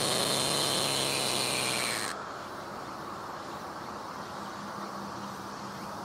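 A cicada singing close up, its song fading and then cutting off suddenly about two seconds in, leaving only a faint steady background hiss.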